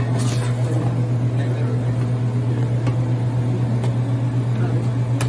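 A steady low hum, with a few light clicks and scrapes of a metal spoon stirring chopped meat in a stainless steel stockpot.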